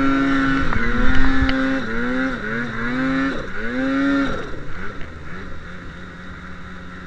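Snowmobile engine revved hard and held, the throttle eased and opened again about three times as the stuck sled is driven out of a hole in deep snow, then dropping back to a low idle about four seconds in.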